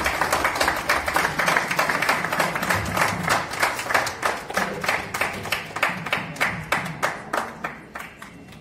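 Audience applauding, a dense run of clapping that thins out into scattered claps and fades near the end.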